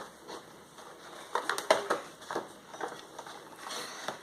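Toy packaging being opened and handled: irregular crackles, rustles and small clicks.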